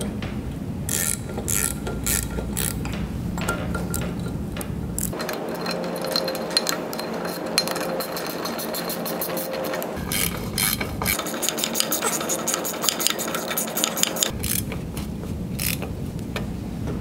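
Hand ratchet wrench clicking as bolts are tightened on a hydraulic actuator's reservoir housing: scattered clicks at first, then long runs of rapid ticking about five seconds in and again about eleven seconds in.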